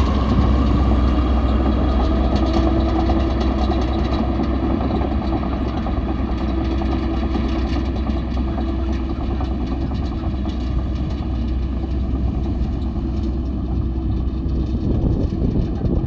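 Bulldozer's diesel engine running steadily with a deep low rumble and some clatter.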